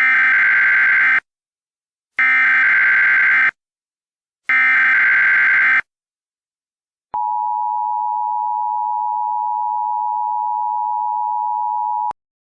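Emergency Alert System tones: three SAME header data bursts, each about a second long and a second apart, then the EAS two-tone attention signal (853 and 960 Hz together) held steady for about five seconds and cutting off abruptly with a click.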